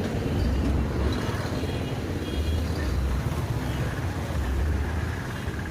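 Street traffic noise: a steady rumble of passing vehicles that swells and eases every second or two, with a few short high tones.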